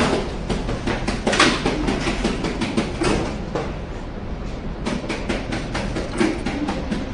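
Mono cake depositor running as it pipes macaron batter onto a tray: a rapid clatter of mechanical clicks over a steady low hum, easing briefly in the middle.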